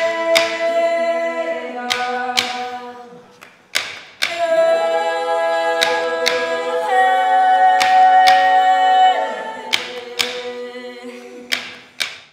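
East Greenlandic frame drum (qilaat) struck on its wooden frame rather than the skin, giving sharp, irregular beats about once a second. Under the beats runs a long held sung melody that steps to a higher pitch a few times.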